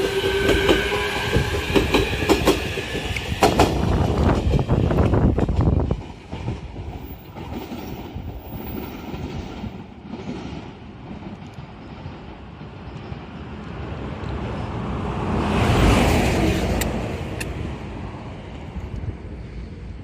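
Train passing over a railway level crossing, its wheels clacking over the rail joints, loud until the last cars clear about six seconds in. A second, quieter swell of passing noise builds and peaks about sixteen seconds in, then fades.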